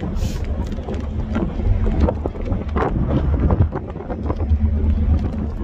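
Strong wind buffeting the phone's microphone on an open ship deck: a low, uneven rush that swells and dips with the gusts.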